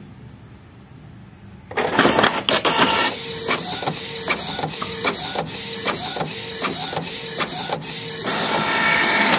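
Canon IP2770 inkjet printer printing a nozzle-check page. After a short quiet, the mechanism clatters into motion about two seconds in. The print head carriage then shuttles back and forth with a regular click about two or three times a second, and a louder whirring stretch follows near the end.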